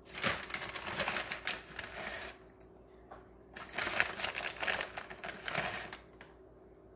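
Kitchen handling noise while a casserole is assembled: two bursts of rapid clicking and rustling a couple of seconds each, with a short pause between.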